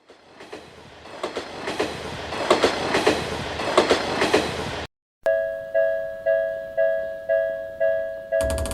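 A train running along the rails, its clickety-clack growing louder for about five seconds, then cutting off abruptly. A railroad crossing warning bell follows, ringing a steady two-tone ding about twice a second, and music comes in near the end.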